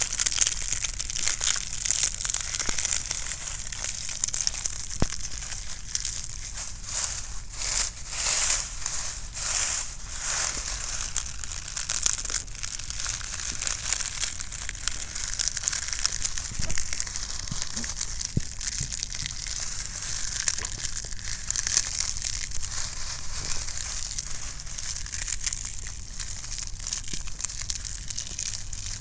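Dry leaves being crunched and crumpled, a continuous dense crackle that is strongest in the highs.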